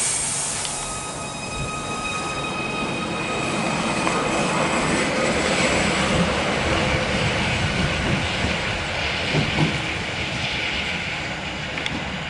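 Merseyrail Stadler Class 777 electric multiple unit moving through the station, with several steady high whines over the first few seconds that fade away under the rumble of wheels on the track, which is loudest around the middle.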